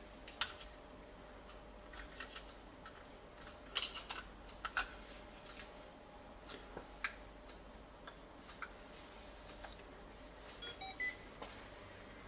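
Scattered plastic clicks and knocks as the FeiyuTech AK2000C gimbal's handle housing is handled and its cover pressed back into place, the loudest knocks about four to five seconds in. Near the end comes a brief run of short electronic beeps.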